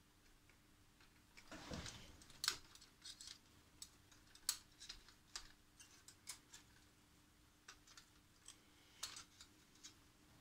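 Faint, scattered small clicks and ticks of fingers handling wires, cable connectors and metal parts inside the open ICOM 756 Pro III transceiver chassis, with a brief rustle about a second and a half in.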